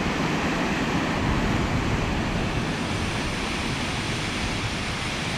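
Steady rushing noise of South Falls, a tall waterfall plunging into its pool, with no breaks or changes.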